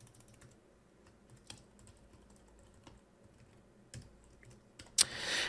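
Faint, irregular typing on a computer keyboard: scattered single keystrokes, with one sharper, louder click near the end.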